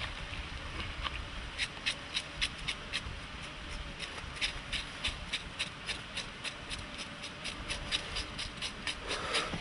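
Scraping singed wild boar hide by hand: quick, scratchy strokes, a few a second, with a short pause partway through.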